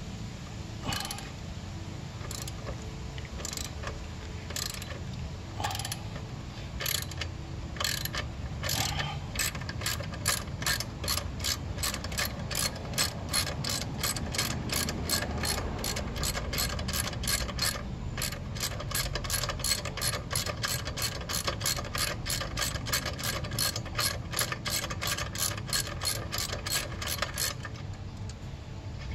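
Hand socket ratchet clicking as a 12 mm bolt on a motorcycle's rear drum brake is backed out. It gives single clicks about a second apart at first, then from about ten seconds in a fast, even clicking of three or four a second that stops near the end.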